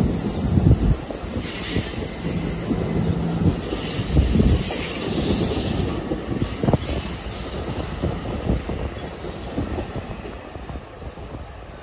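An NJ Transit train of bilevel MultiLevel coaches passing close by: its wheels clatter over the rails with irregular knocks, and a high wheel squeal rides over them for the first several seconds. The sound fades over the last few seconds as the cab car at the end of the train goes by.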